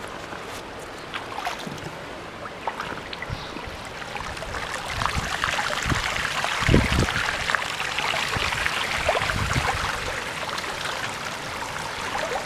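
Floodwater sloshing and splashing around a bicycle being waded through thigh-deep water on a flooded street, growing louder about halfway through with a heavier splash just after the middle.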